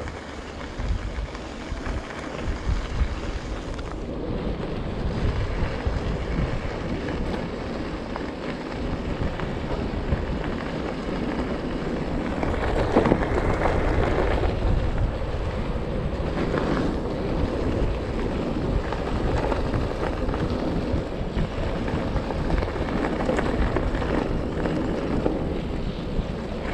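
Wind buffeting the microphone of a handlebar-mounted camera on a moving bicycle, with the rush of tyres rolling over a gravel track; a little louder about halfway through.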